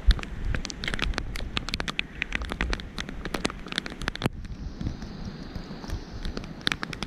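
Heavy rain: many sharp, irregular ticks of drops striking close by over a steady hiss of rain. About four seconds in, the ticks stop abruptly for a couple of seconds, leaving only the hiss, then start again.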